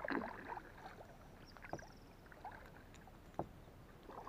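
Kayak paddling: a paddle blade swishing quietly through calm water, with a short splash at the start and two sharp knocks.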